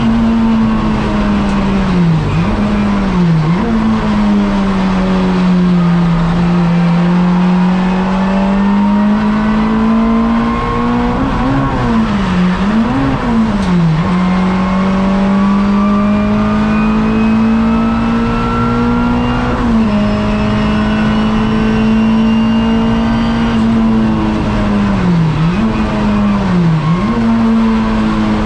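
Race-prepared hot hatch's engine heard from inside the cabin, running hard at high revs on track. Its pitch drops sharply and climbs back several times in quick dips as the driver lifts and changes gear for the corners.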